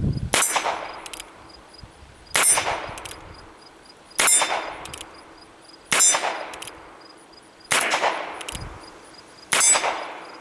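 Colt Frontier Scout single-action .22 LR revolver fired six times, about one shot every two seconds, emptying its six-round cylinder. Each shot is followed by a ringing clang from the steel plate targets being hit.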